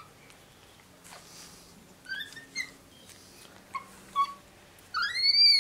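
A capuchin monkey gives several short, high chirps, then a louder call near the end that rises and falls in pitch.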